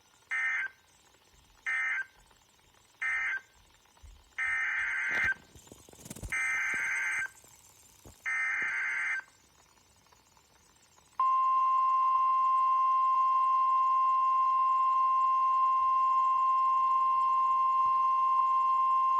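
NOAA Weather Radio Specific Area Message Encoding (SAME) data bursts: three short end-of-message bursts, then three longer header bursts about a second apart, each a raspy digital warble. About 11 seconds in, the steady 1050 Hz Weather Radio warning alarm tone begins and holds, announcing the next warning.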